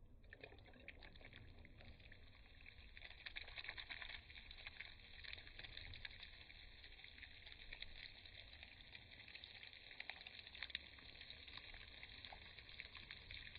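Water sprinkling from a watering can's rose onto bare soil: a faint, steady hissing patter.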